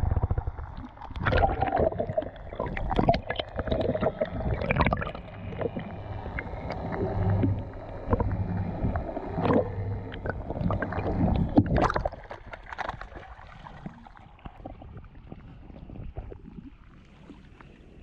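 Underwater sound picked up through a submerged camera housing: muffled sloshing and gurgling water with irregular knocks and a low steady hum, quieter after about twelve seconds.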